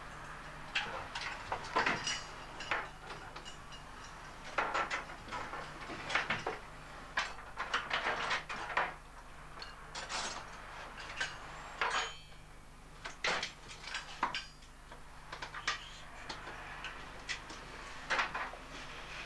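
Irregular metallic clicks and clinks as small brass parts of a fitting clamped in a bench vice are handled and worked by hand, over a steady low hum.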